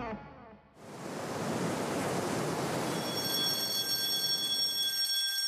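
Sea water rushing and foaming around a submarine's hull. About three seconds in, a steady high-pitched electronic alarm tone from the submarine's control room joins it.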